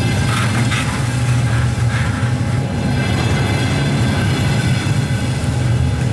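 Double-decker passenger coaches rolling past close by as the train pulls out, a steady low rumble of wheels on rails. A few short, higher squeals come in the first two seconds.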